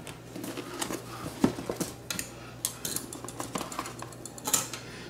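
Hands handling a cardboard box and picking at its end flap to open it: scattered taps, scrapes and clicks of cardboard, with a louder knock about a second and a half in and another near the end.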